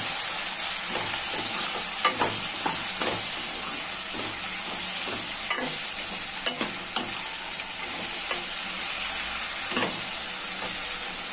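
Chopped vegetables sizzling in oil in a kadai, sautéing in an onion-tomato base, while a steel ladle stirs them, with irregular scrapes and knocks of the ladle against the pan every second or so over a steady sizzle.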